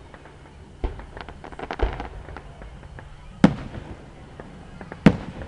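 Aerial firework shells bursting: four sharp bangs, the loudest about three and a half seconds in, with a quick run of crackling between the first two.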